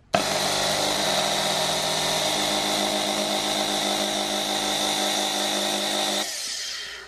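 Brushed electric motor, power-tool type, running at a steady speed with a high-pitched whine, switched on abruptly and switched off about six seconds in, dying away quickly. It stands for the extra noise that worn carbon brushes can cause.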